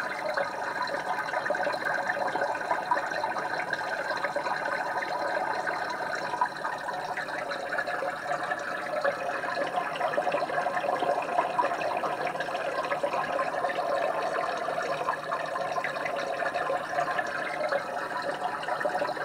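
Steady bubbling water from an aquarium screensaver's sound effect, the sound of a fish tank's air bubbles.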